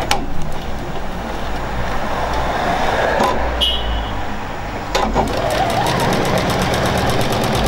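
Juki HZL-NX7 computerised sewing machine stitching a standard stitch through a quilt sandwich with its dual feed engaged: motor whirring with the needle ticking, settling into a fast, even rhythm over the last couple of seconds. A few clicks and a short beep about three and a half seconds in.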